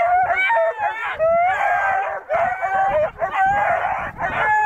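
A pack of three-month-old coonhound puppies baying up a tree, their overlapping high-pitched bawls and short chops running together without a break: the young hounds are treeing the raccoon hide pulled up the trunk.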